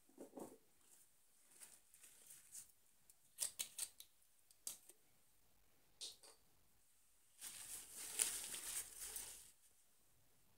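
Light clicks and taps from handling computer hardware, then a longer scraping rustle about three quarters through.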